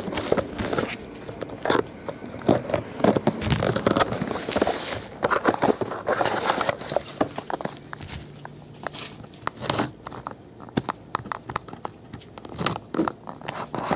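Hands opening a cardboard trading-card box: the box and its lid sliding, scraping and tapping in irregular clicks, with scissors snipping the seal near the end.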